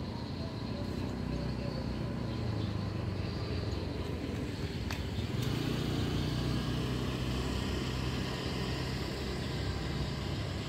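A motor vehicle's engine running steadily, a low rumble that grows a little louder about halfway through, with a single sharp click just before.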